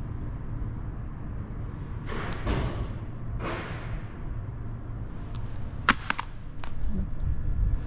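Outdoor street background with a steady low rumble, two brief whooshes falling in pitch about two and three and a half seconds in, and a few sharp clicks about six seconds in.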